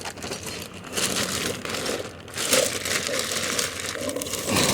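Crinkling and rustling of a plastic bag and its contents being rummaged through by hand, in uneven handfuls.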